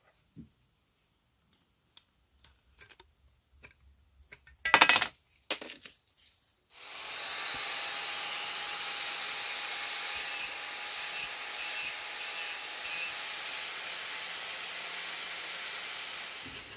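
Light clicks and a short metallic clatter as sheet-metal pieces are handled. Then, about seven seconds in, an angle grinder starts up and runs steadily against a small piece of sheet steel, a loud grinding with a steady high whine, until it stops just before the end.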